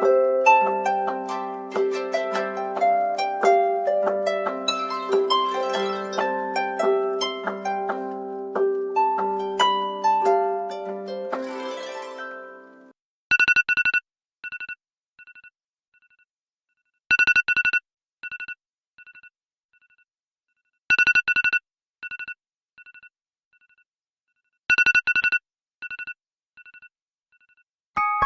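Smartphone alarm tones: first a plucked, harp-like melody over a repeated low note, which stops about 13 seconds in. Then a different alarm of short clusters of high electronic beeps, each trailing off in fading echoes, repeating about every four seconds.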